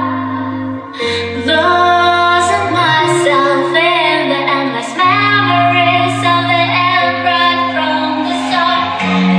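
A song with a woman singing over held bass notes, played loud through a MOSFET audio amplifier and woofer speakers.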